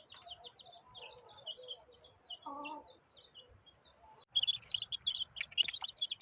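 Small birds chirping in quick, repeated high notes. About four seconds in, the chirping becomes louder and denser.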